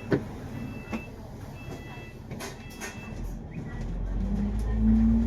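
Cabin noise of a double-decker bus: a few sharp clicks and rattles, then the engine note rises from about three seconds in as the bus pulls away. The engine is loudest near the end.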